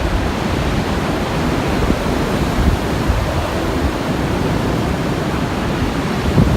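Storm-force wind rushing steadily, with low rumbling buffets of wind on the microphone.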